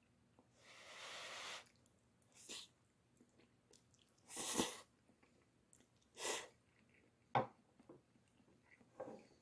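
A person slurping jjajang ramen noodles and chewing: several short slurps, the loudest about four and a half seconds in, and one sharp click a little after seven seconds.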